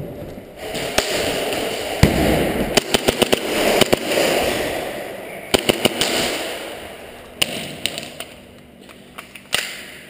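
Airsoft gunfire: sharp shots in quick bursts. There is a single loud shot about two seconds in, a rapid string about a second later, another burst around six seconds in, and a few scattered shots near the end, all over a rushing noise.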